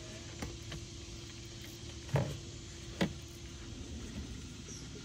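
Two dull thumps about a second apart over a steady low hum, with a faint steady tone through the first three seconds.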